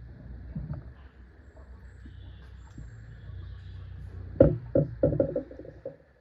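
A steady low hum, then a quick run of four or five sharp knocks and clanks about four seconds in.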